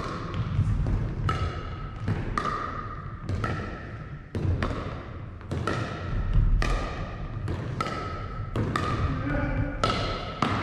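A pickleball rally: paddles striking the hard plastic ball in a quick back-and-forth, a sharp hollow click about once or twice a second, each echoing in the hall.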